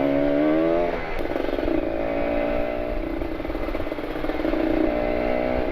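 Kawasaki Ninja RR 150's two-stroke single-cylinder engine through an aftermarket R9 carbon exhaust, revving up for about a second, then dropping back near one second in and running at fairly steady, slightly wavering revs.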